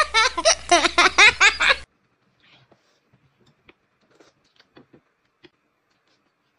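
A burst of rapid, high-pitched giggling laughter that cuts off abruptly about two seconds in, followed by faint soft clicks and smacks of eating with chopsticks.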